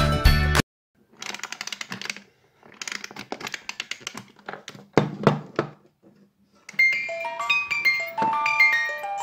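Background music cuts off just after the start. Then come a few seconds of rapid clicking and rattling from a heart-shaped ballerina music box being handled, with a single knock, and about seven seconds in the music box's comb starts plucking its tune in clear, high, ringing notes.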